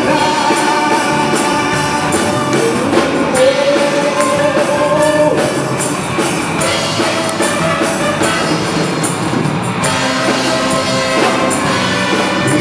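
Live music: a student saxophone band playing a pop-rock song with a steady beat, a man singing over it into a microphone.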